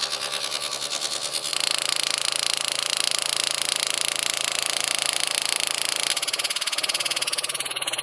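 Homemade pneumatic hand engraver, driven by a converted tire-pump compressor that pulses air up and down to its piston, chattering rapidly and steadily as the graver cuts into an aluminium shift knob. It gets louder about a second and a half in.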